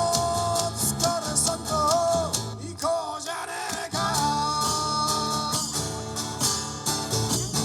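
Man singing long held notes over a strummed Gibson J-200 jumbo acoustic guitar; the voice drops out briefly about three seconds in, then comes back in.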